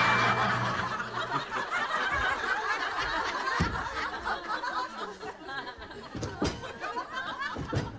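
Studio audience laughing, the laughter fading gradually, with a few light knocks.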